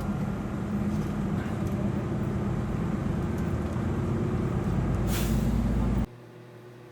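Steady low rumble of a large running vehicle, with a short hiss of air near the end. It cuts off abruptly about six seconds in, leaving a quieter steady hum.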